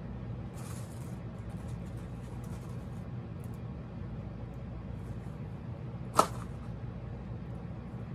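Small plastic doll and its tiny clothes being handled: a brief rustle about half a second in, a few light ticks, and one sharp click about six seconds in, over a steady low room hum.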